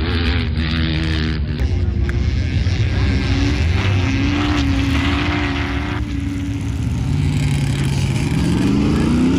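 Off-road vehicle engines running hard at high revs, with a steady engine note held through the middle and an engine revving up in rising pitch near the end.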